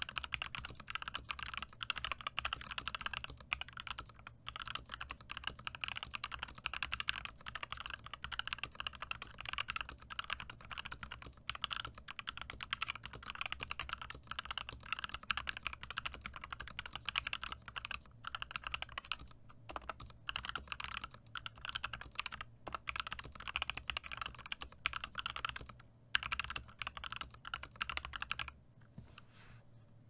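Fast, continuous typing on an HK Gaming GK61 60% mechanical keyboard with Gateron Optical Yellow linear switches and YMDK keycaps. The keystrokes stop near the end.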